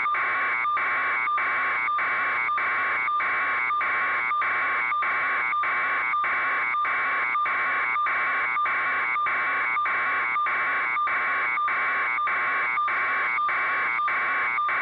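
Electronic buzzing tone that pulses with short regular breaks about three times a second, steady in level throughout.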